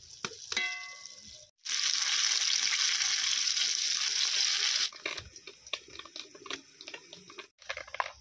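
Eggplant slices sizzling in hot oil in an aluminium wok: a loud, steady sizzle for about three seconds, then a lighter crackle with scattered pops.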